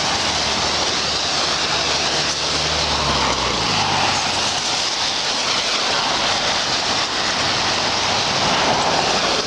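Traffic on a rain-soaked street: a steady hiss of tyres on wet pavement, with a passing vehicle's engine hum that fades out about three and a half seconds in.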